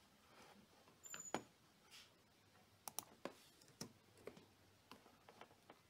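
Scattered computer mouse and keyboard clicks, about a dozen sharp, unevenly spaced clicks with a small cluster about a second in, over quiet room tone, as an ECU data file is saved and backed up.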